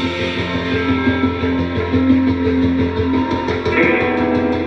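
Band music with a prominent guitar, playing steadily.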